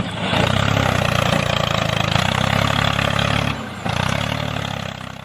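A small engine running steadily with a fast, even chugging beat. It drops out briefly twice and fades away near the end.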